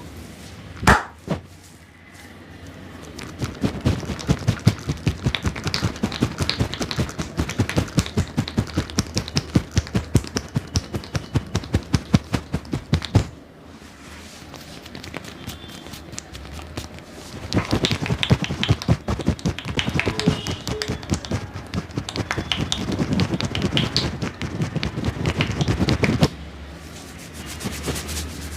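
A barber's hands slapping and tapping quickly and rhythmically on the head and body during a percussive massage, in two long runs of strikes with a short lull between. A single sharp crack about a second in.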